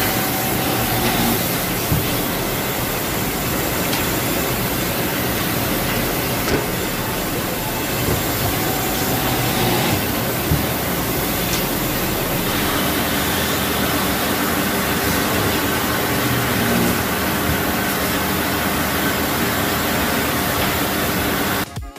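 SEMAC SMBL-206 hydraulic multi-spindle vertical boring machine running as it drills wooden workpieces: its 16 downward-facing spindles make a steady loud mechanical whir, with a few sharp knocks. It cuts off suddenly near the end.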